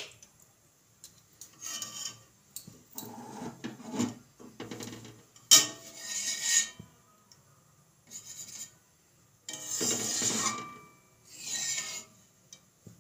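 A metal spatula scraping around the bottom of a metal karahi of simmering milk in a string of scraping strokes, each about half a second to a second long, with pauses between. The milk is being stirred as it reduces to kheer, to keep it from sticking to the bottom.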